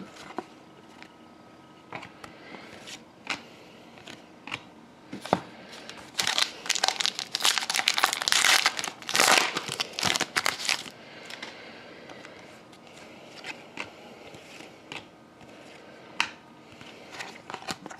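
A hockey card pack wrapper being torn open and crinkled, in a dense burst of crackling from about six to eleven seconds in. Scattered light clicks and taps of cards being handled come before and after it.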